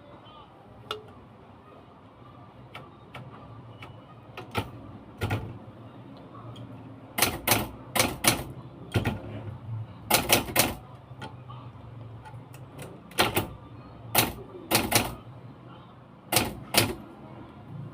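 Typewriter keys striking, typed in irregular short runs of sharp clacks with pauses between them.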